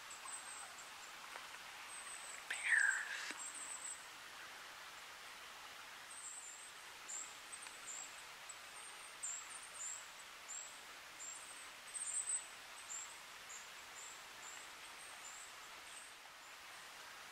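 Wild birds calling over a steady background hiss. There is one loud, falling whistle about three seconds in, then a long series of very high, thin chirps repeating about once or twice a second.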